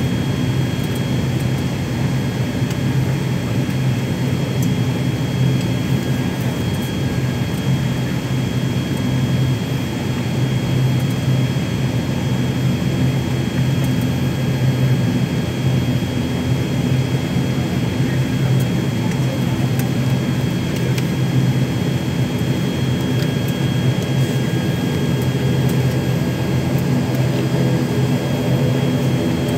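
ATR 72-600's Pratt & Whitney Canada PW100-series turboprop and its spinning propeller running steadily, heard from inside the cabin: a low, even drone with a thin steady high whine above it.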